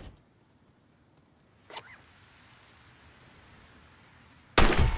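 A car door shutting, then a short zipper sound about two seconds in over faint background hiss. Near the end comes a sudden loud gunshot.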